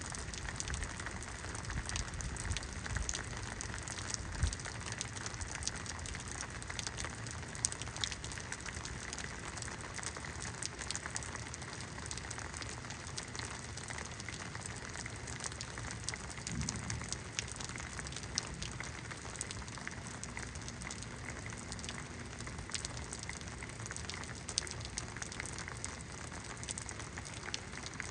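Steady rain falling in a rainstorm, a constant hiss with many separate drops ticking on nearby surfaces.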